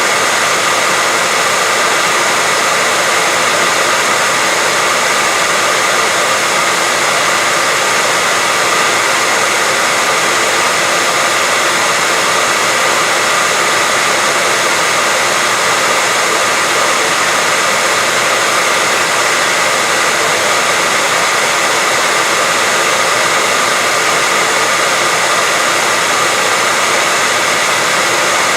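Steady white noise: an even, unchanging hiss that is strongest in the upper range, with faint steady tones in it.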